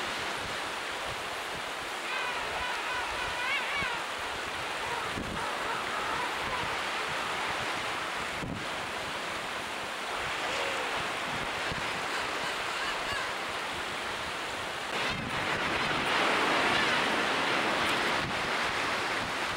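Steady wash of surf and wind on the microphone, growing a little louder near the end. Over it, king penguins give a few warbling, wavering calls a couple of seconds in, and fainter ones later.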